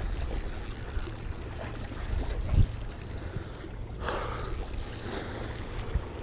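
Wind buffeting the microphone in a low, uneven rumble, with a thump about two and a half seconds in and a short rustling burst about four seconds in.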